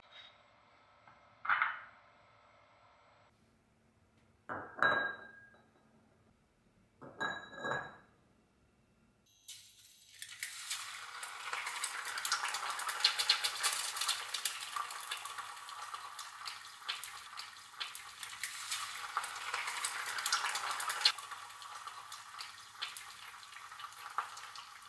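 A few short knocks and clinks of kitchenware, then eggs frying in a pan: a dense sizzle full of little crackling pops. The sizzle starts about ten seconds in and eases off near the end.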